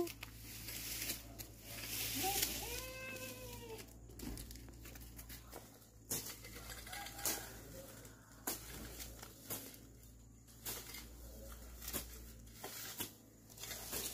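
A hoe scraping and chopping at dry, littered ground in irregular strokes. About two and a half seconds in there is a short whining call that rises and falls.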